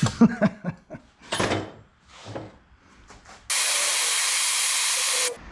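Handheld gas torch hissing steadily for about two seconds, starting and stopping abruptly, as it heats the aluminum rim for brazing. It comes after a few light taps and clicks.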